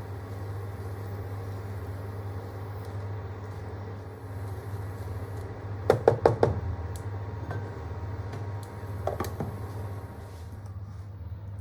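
A steady low hum runs throughout. About six seconds in, a quick run of five or so sharp knocks sounds, and a few lighter knocks follow about nine seconds in.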